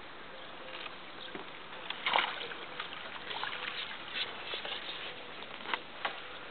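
A hooked crucian carp splashing at the water's surface as it is brought into a landing net, loudest about two seconds in, then a few sharp clicks, over a steady hiss.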